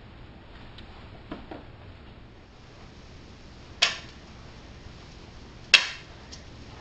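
Two sharp taps on a hard floor about two seconds apart, from a walking cane, over a faint steady room hiss.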